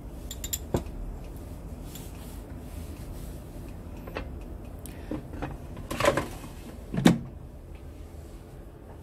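A few light knocks and clatters as a Philips air fryer's basket is handled, then the basket drawer is slid back into the fryer and shut with a heavier thud about seven seconds in.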